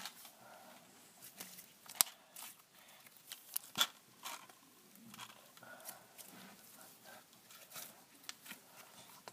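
Slime being poked and pressed with a fingertip, giving quiet, irregular small clicks and pops, the sharpest about two seconds in.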